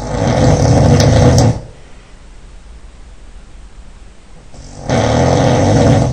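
A man snoring loudly: two long snores, one at the start and another about five seconds in.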